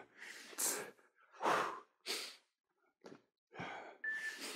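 Hard breathing during bodyweight push-ups: short, forceful breaths about once a second. A short electronic countdown beep from the workout timer sounds near the end.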